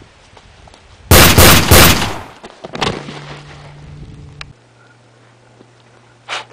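A loud, quick burst of about three gunshots from a gunfire sound effect, about a second in. Near the end comes a short puff of breath, like blowing across a gun barrel.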